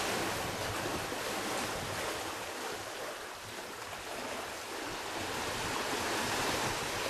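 Small waves washing onto a sandy shore as a steady hiss that swells and eases slightly, with wind buffeting the microphone.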